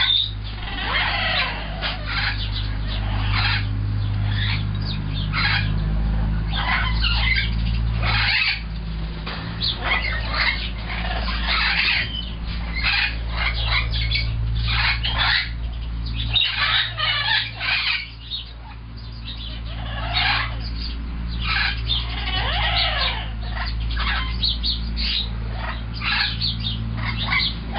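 Goffin cockatoos making many short, irregular chirps and squawks, over a steady low hum.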